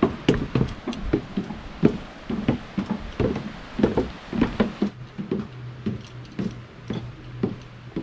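Footsteps on wooden deck stairs while walking down: a string of uneven knocks, a few each second.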